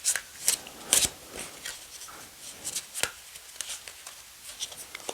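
A new, thick-stocked, glossy tarot deck being shuffled by hand: irregular sharp card slaps and flicks, the loudest about a second in and again about three seconds in.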